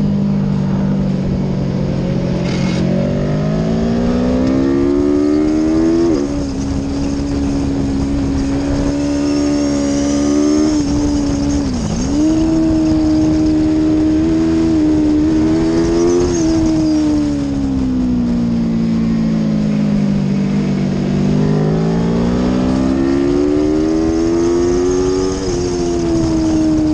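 Aprilia Tuono V4 motorcycle's V4 engine at racing speed. Its pitch climbs under acceleration and drops sharply at gear changes about six seconds in and near the end. There is a brief dip around twelve seconds, and a long fall as the bike slows before it climbs again.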